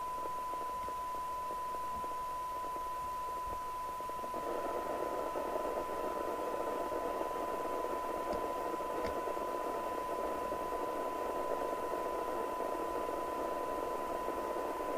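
President Walker CB radio receiver's audio output during a SINAD alignment: a steady 1 kHz test tone under hiss from a weak test signal. The hiss grows louder about four seconds in, while the receiver's tuning cores are being adjusted for best sensitivity.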